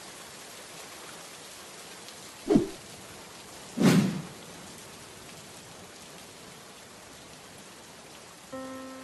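Steady rain falling, with two short, sudden, louder hits about two and a half and four seconds in. Near the end a held chord of music comes in over the rain.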